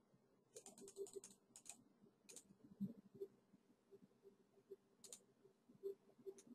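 Near silence with faint, scattered computer clicks: a quick cluster in the first second and a half, then a few single clicks.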